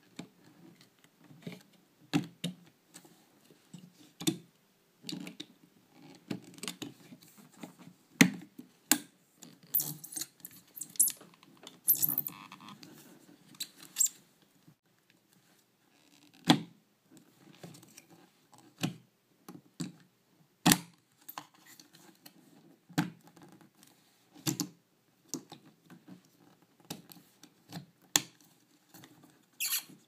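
Plastic clicks, taps and scraping of a GoPro quick-release buckle mount being squeezed, slid out of and pushed back into its flat mount base. The sounds come irregularly, with a rattling, scraping stretch about ten seconds in and a few sharper snaps.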